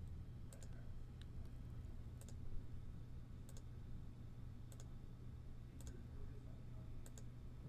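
Computer mouse clicking, about six clicks roughly a second apart, each a quick press-and-release tick, over a faint steady low hum.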